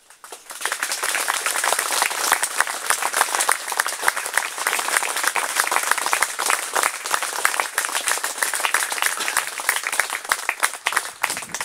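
Audience applauding, dense clapping that starts about half a second in and holds steady, fading near the end.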